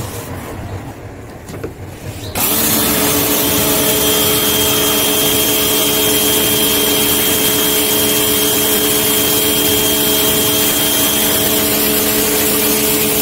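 Sun Joe 1350 PSI electric pressure washer starting up about two seconds in, its motor and pump then running with a steady whine while the water jet hisses against wooden deck boards.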